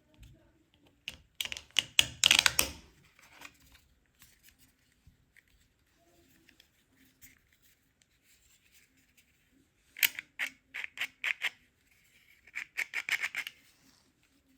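3D-printed plastic lock parts being handled and fitted together: three bursts of quick clicking and rattling, about a second and a half in, then around ten seconds and again near the end, with faint ticks in between.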